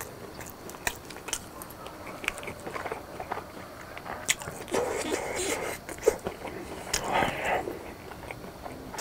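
Close-miked chewing of a mouthful of sauce-coated fried pork cutlet (tonkatsu), with many short wet mouth clicks and two denser stretches of chewing noise in the second half.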